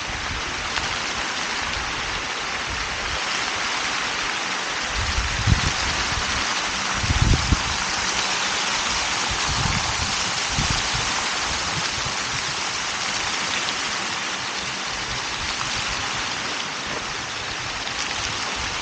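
Fountain jets spraying and splashing into their pool, a steady rush of falling water. A few brief low thumps break in near the middle.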